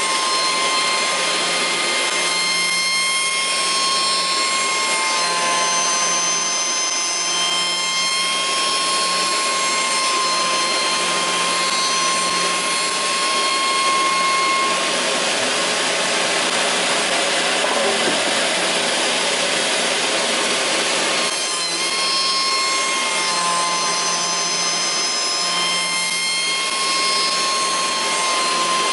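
Automatic wood copy shaper running, its high-speed spindle cutter milling a wooden workpiece with a steady machine whine of several pitches. Past the middle the whine gives way for several seconds to a broader rushing noise, then returns.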